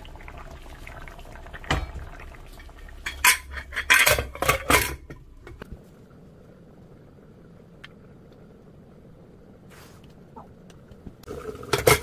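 Metal pots and kitchen utensils clinking and clattering against each other. There are sharp knocks about two seconds in and a loud cluster between three and five seconds in, then a quieter stretch, and the clatter picks up again near the end.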